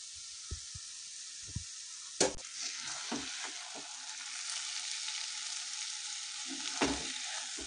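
Gajar ka halwa sizzling in a hot nonstick pan while a spatula scrapes and scoops it into a glass bowl, with two sharper knocks of the spatula, about two seconds in and near the end.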